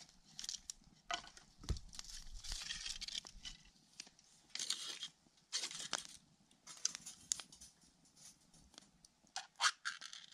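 Packaging being handled: crinkling and tearing in short bursts, with scattered sharp clicks and a dull thump about two seconds in.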